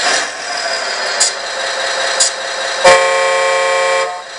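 The RC excavator's electronic sound module playing a simulated diesel engine running through its speaker, with a horn sound about three seconds in that lasts about a second and cuts off suddenly.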